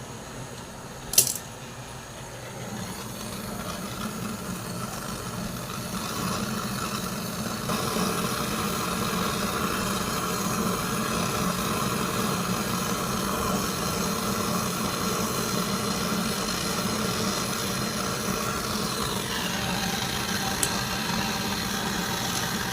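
A sharp click about a second in, then a steady motor hum that builds over the next few seconds, grows louder, and holds, with a faint tick near the end.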